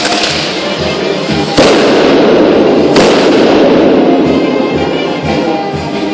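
Brass band music with a steady low beat, broken by three sharp firework bangs about a second and a half apart, the loudest in the middle. Each bang is followed by the fizzing hiss of spark-spraying firework fountains, which slowly fades.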